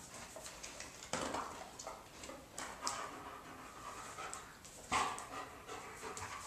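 German Shepherd panting, irregular breathy huffs with a few louder bursts, the loudest about five seconds in.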